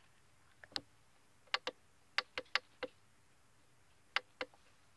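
Push-button switch of a lantern clicked repeatedly, about nine sharp clicks in short runs, while trying to switch off a light that has been flickering and won't turn off.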